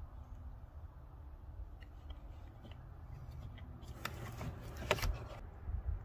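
Small flathead screwdriver prying at a plastic wiring-harness connector on a car's control module, with light ticks and then a cluster of sharp plastic clicks and rattling about four seconds in as the latch is worked, over a low rumble.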